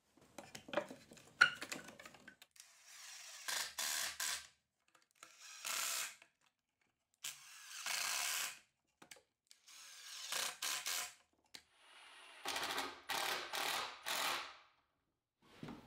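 Cordless drill-driver with a long bit driving pocket-hole screws into a wooden table frame, in a series of short runs, each under a second, with a few clicks and knocks before them.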